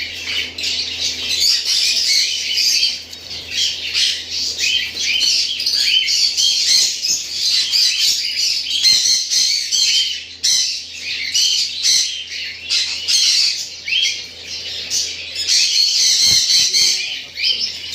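Many caged parrots chattering and squawking together, a dense, continuous mass of overlapping shrill calls.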